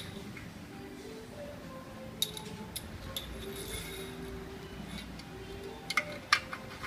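Light metallic clinks and taps of faucet parts being handled, over faint background music. A few come about two seconds in, and a louder cluster comes near the end.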